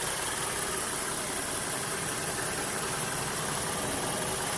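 2012 Ford Mustang's 3.7-litre V6 idling steadily, warming the oil before an oil change.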